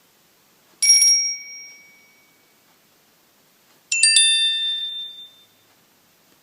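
Samsung Galaxy J1 Ace stock ringtone: a bright bell chime struck once and left to ring out, then a quick cluster of bell strikes about three seconds later that also rings out.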